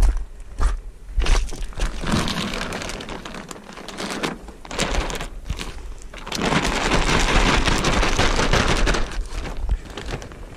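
A cockpit cover crinkling and rustling as it is handled and fitted over a kayak's cockpit, with dense crackling and light knocks. It comes in two stretches, the second, from about six and a half seconds in, the louder.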